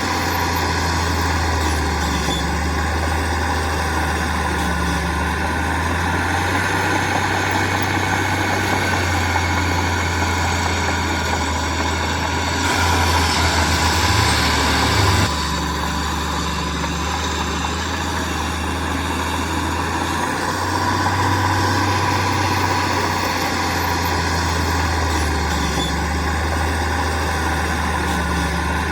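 Heavy diesel construction machinery engine running steadily. Near the middle it gets louder and harsher for about two and a half seconds, then drops back abruptly.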